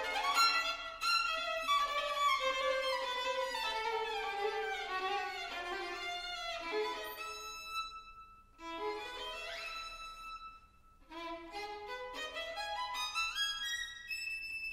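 Solo violin playing classical music in fast runs of notes, mostly falling at first, then climbing after two brief pauses near the middle. The sound is echoey and large, like a concert hall.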